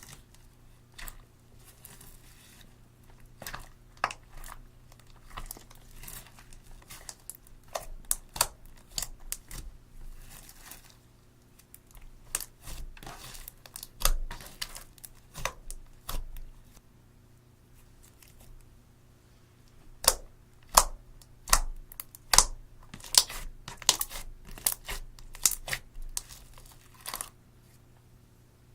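Clear slime being kneaded, stretched and pressed by hand, giving many quick, irregular sticky clicks and pops that come thickest about two-thirds of the way through.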